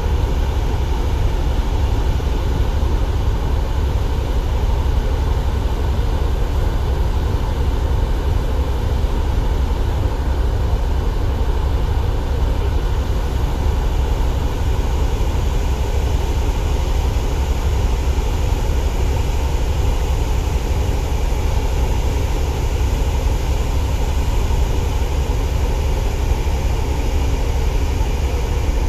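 Steady, loud low rumble aboard a car ferry under way at sea: the ship's engines droning, with wind buffeting the microphone.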